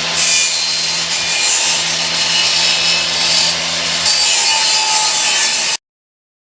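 Table saw running and cutting through a wooden 2x4, a steady motor hum under the noise of the blade in the wood. It cuts off abruptly near the end.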